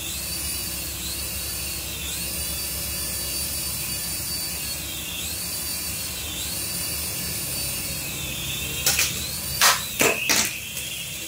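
Small toy RC helicopter's electric rotor motors whining steadily, the pitch dipping and rising again several times as the throttle changes. Near the end there are a few sharp, loud knocks.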